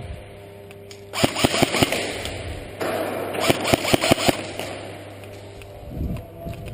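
Airsoft gun firing in two short bursts of rapid sharp shots, about a second in and again about three seconds in, with a thump near the end.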